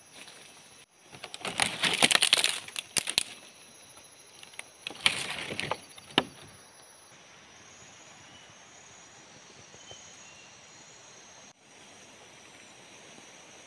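Crackling and rustling of footsteps through dry leaves and brush, with twigs snapping, in two spells: the first about a second in and the second around five seconds in. After that comes a steady, quiet forest background with a few faint high chirps.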